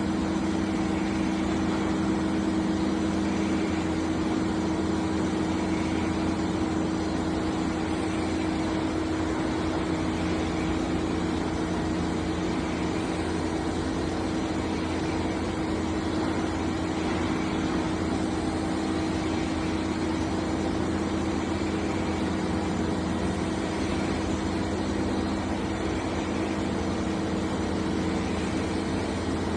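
Toshiba BTD-130H.R22 CNC table-type boring mill running with a steady machine hum, a constant drone carrying two steady tones.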